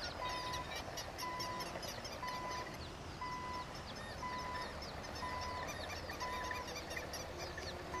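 Many small birds chirping in quick, overlapping short falling calls, over a clean tone that pulses on and off about once a second.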